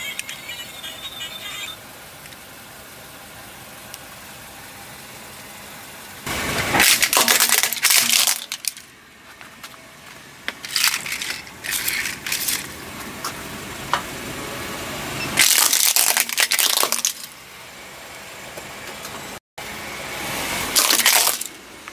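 Plastic toy phone robots cracking and breaking as a car tyre rolls over them on concrete. The crushing comes in four loud spells of sharp cracks, a few seconds apart.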